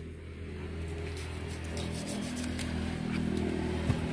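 A motor engine running steadily, a low hum that grows gradually louder. There is a short sharp click near the end.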